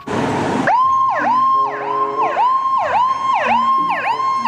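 A short hiss, then a fire engine siren sounding in fast repeated swoops, the pitch dipping and rising about twice a second.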